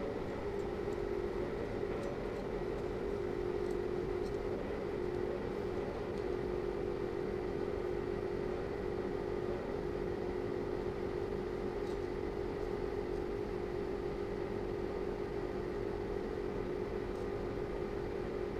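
A steady mechanical hum, like a small motor or fan running, with a few faint light clicks scattered through it.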